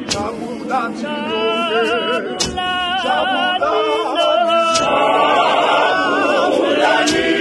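Mixed choir of men and women singing a Zulu gospel song a cappella, the sound growing fuller and louder about five seconds in. A sharp knock cuts through about every two and a half seconds.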